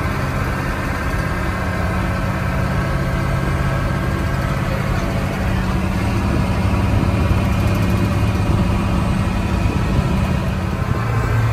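Monster truck's engine running steadily under way, heard from on board: a low, even drone that grows slightly louder about halfway through.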